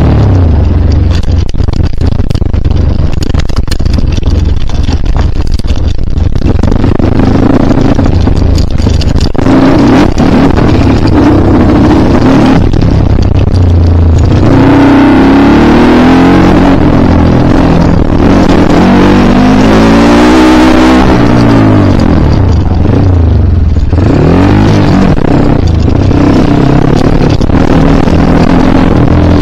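Dirt bike engines running loudly, revving with pitch rising and falling several times in the middle.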